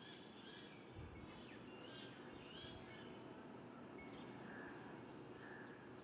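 Faint bird chirps, short scattered calls over a steady background hiss, with a soft low bump about a second in.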